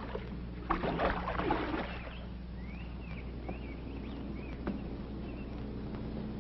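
Water splashing briefly, then a few faint bird chirps over a low steady hum.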